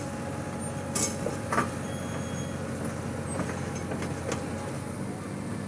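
Heavy diesel engine running steadily under load as an excavator bucket pushes a dump truck out of a ditch, with two sharp metal knocks about a second in and again half a second later, and fainter knocks further on.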